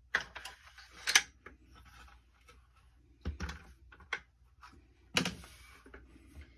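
Sharp metal clicks and clacks of a Norinco Type 97 rifle being reassembled by hand, its bolt slid into the receiver along the side rails. A handful of separate knocks, the loudest about a second in.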